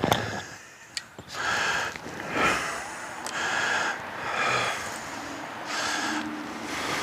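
A person breathing heavily and close to the microphone, in long breathy in-and-out swells about once a second. A sharp click sounds right at the start.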